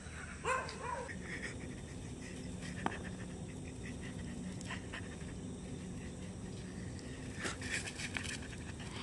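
A dog gives one short whine about half a second in; after it there are only faint scattered clicks over a low steady hum.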